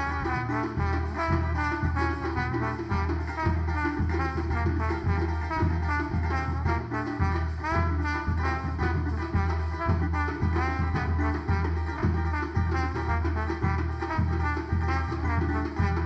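Instrumental band music: a melody line played over a steady, driving drum beat.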